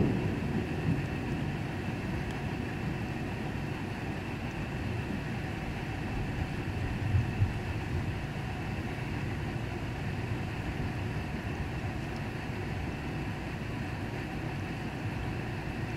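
Thunder rumbling low, a swell right at the start and a shorter one about seven seconds in, over a steady background noise.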